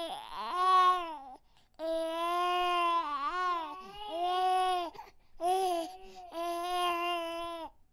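Baby doll's electronic crying: a recorded infant cry in about five wails of a second or two each, one wavering up and down in the middle.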